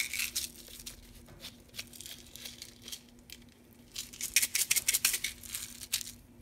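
Pepper grinder being twisted over a frying pan, a rapid crunchy clicking of peppercorns being ground: a short burst at the start and a longer one about four seconds in, with a few scattered clicks between. A faint steady hum runs underneath.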